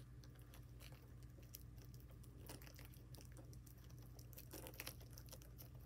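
Faint scattered clicks and crinkles of fingers handling a VHS tape's packaging while trying to open it, over near silence with a low room hum.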